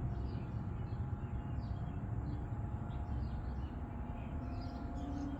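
Small birds chirping repeatedly, short falling chirps, over a low steady background rumble.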